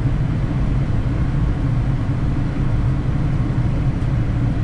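Steady low rumble of a Boeing 787 heard inside its flight deck on short final approach, the noise of airflow and engines at an even level.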